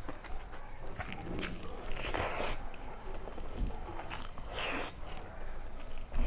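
Chewing and eating sounds of a person eating fish curry and rice by hand: small mouth clicks throughout, with two louder noisy stretches about two seconds and four and a half seconds in.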